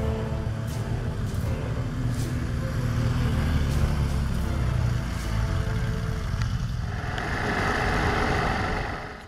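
Trail motorcycle engines running as bikes ride by on a dirt track. About seven seconds in, a steady rush of wind and riding noise takes over, heard from a camera mounted on a moving motorcycle.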